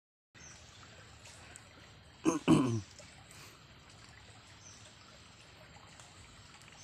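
Faint steady trickle of shallow flowing water, starting a moment in. About two seconds in it is broken by two brief, loud voice-like sounds that fall in pitch.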